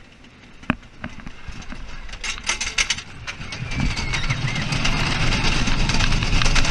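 Wooden roller coaster train cresting the lift hill: a few clicks and rattles, then a low rumble and wind noise building steadily as the train picks up speed into the first drop.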